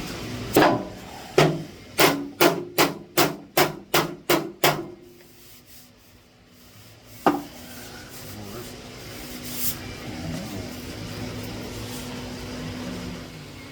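A run of about ten sharp hammer-like knocks, roughly two or three a second, then one more single knock a couple of seconds later. Faint rubbing follows near the end.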